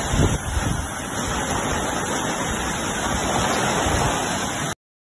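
Muddy floodwater rushing in a flash flood, a steady, loud rushing noise with no break. It cuts off abruptly near the end.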